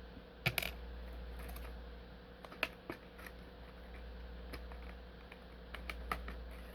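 Irregular small clicks and taps of hands handling a padlock set's packaging and small keys, a few sharper knocks among them, over a steady low hum.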